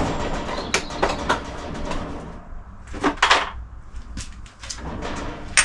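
Tools clattering as someone rummages for a socket, with a handful of sharp clinks and knocks in the first second and a half, another cluster about three seconds in, and a quick run of them near the end.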